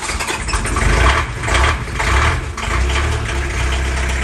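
Forklift engine running just after a cold start, smoking from its exhaust stack, with a steady low rumble that swells louder a couple of times.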